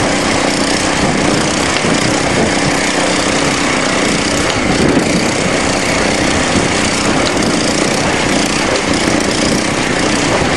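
Small single-cylinder-class garden tractor engines of a John Deere and a Speedex running steadily under load as the two tractors pull against each other; the engine note wavers briefly about halfway.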